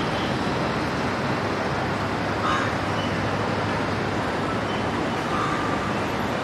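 Steady road traffic noise: an even hiss at a constant level with no distinct events standing out.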